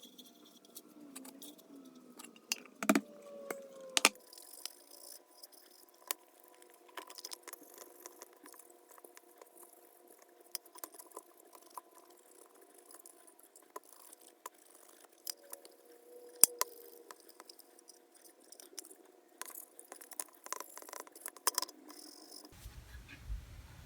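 Light handling noises of a metal socket-set box being worked by hand while wax is applied: scattered clicks and small rattles, with a few sharper clicks about three and four seconds in and again past the middle, over a faint steady hum.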